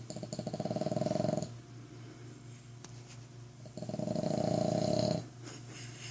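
Boston terrier snoring loudly: two long snores about three and a half seconds apart, each a rapid flutter lasting about a second and a half.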